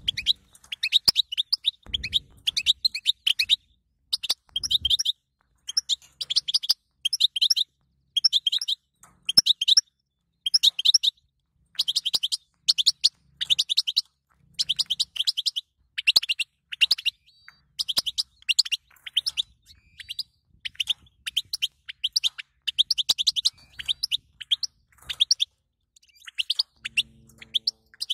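European goldfinch calls: short bursts of rapid high twittering chirps, repeated about once a second with brief gaps. This is the female goldfinch's 'battabta' chatter, played to rouse male goldfinches into song.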